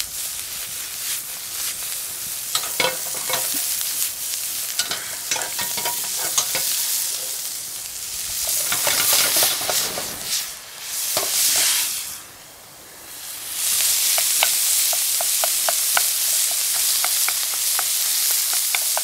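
Food frying in hot oil in cast-iron skillets on a propane camp stove: a steady sizzle with the clatter of a skillet being tossed and stirred. About halfway through, flames flare up from the pan and the sound swells for a few seconds, then drops away briefly. The sizzle returns with quick, regular taps of a wooden spoon stirring.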